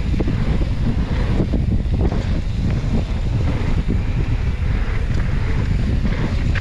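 Steady heavy wind noise buffeting the microphone of a mountain bike riding a flow trail, with tyre rumble and small rattles and knocks throughout.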